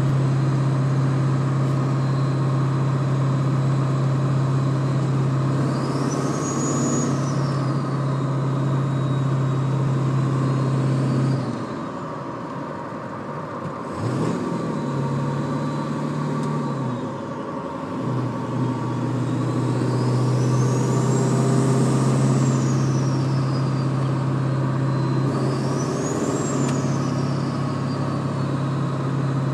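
Ford 7.3-litre diesel truck with an unexplained steady low hum, which the owner finds weird. The hum drops out twice partway through, and a high whistle rises and falls three times over it.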